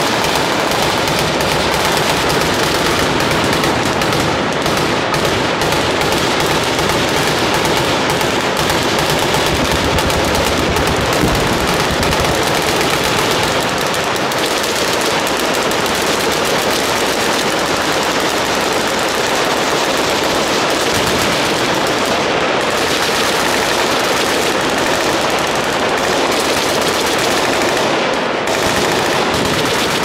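Massed machine-gun fire from a whole firing line shooting at once: a dense, unbroken roll of overlapping bursts that never lets up.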